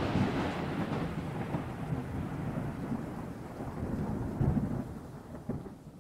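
Pool water splashing and churning as swimmers come off a water slide into the pool, with a fresh splash about four and a half seconds in; the splashing dies down near the end.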